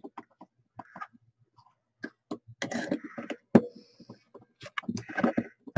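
Resin ball-jointed doll parts and a metal clamp clicking and knocking together while the head is fitted onto the doll's neck, with short rustles of handling and a sharper click about three and a half seconds in.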